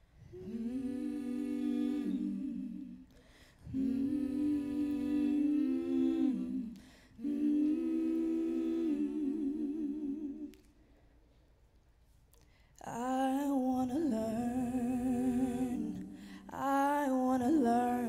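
Several voices humming a sustained wordless harmony in held phrases of about three seconds each, with a pause of about two seconds near the middle; one phrase ends in a wavering vibrato, and the last phrases are fuller and brighter.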